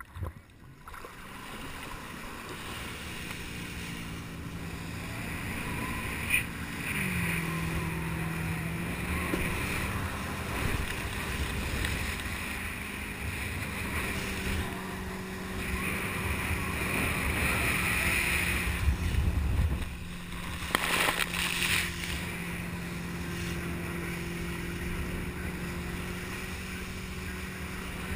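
Motorboat engine running under way with a steady drone. Its pitch drops once about seven seconds in, then holds. Wind and rushing water noise sit over it, with a brief dip and a few knocks around two-thirds of the way through.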